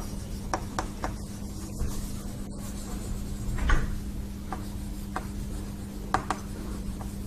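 Chalk tapping and scratching on a chalkboard as a word is written out: a string of short, irregular taps and strokes.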